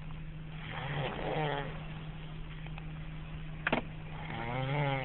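A young child snoring: two snores about three and a half seconds apart, the second a little longer, with a sharp click between them.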